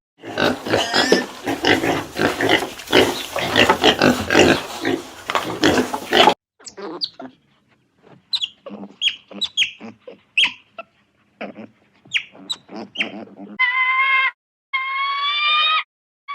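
Pigs squealing and grunting: a dense, noisy run of calls for about six seconds, then scattered short squeals and grunts. Near the end comes a series of long, clear, pitched calls from an animal that cannot be named.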